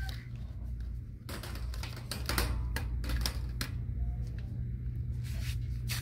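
An irregular run of clicks and clatters, thickest in the first half, over a steady low hum.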